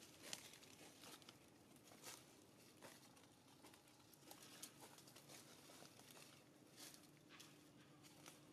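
Near silence with faint, scattered rustling and crackling of dry leaf litter as a baby monkey moves about on it.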